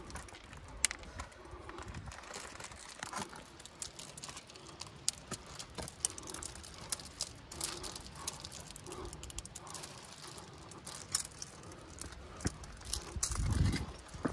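Footsteps scrambling up rock and loose gravel: boots scuffing and small stones clicking and skittering at an irregular pace. A short low thump near the end.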